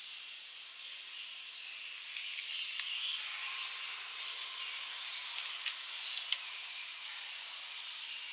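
Chicken pepper roast sizzling gently in a steel pan on the stove, a steady soft hiss, with a few faint light ticks.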